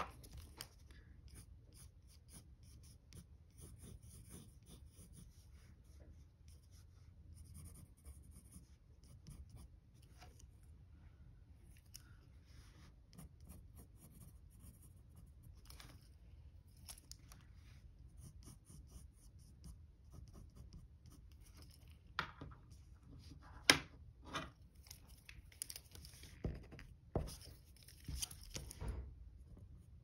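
Faint scratching and rustling of a pencil and hands on drawing paper, then several sharp taps and knocks in the last third as the pencil is taken up to draw again.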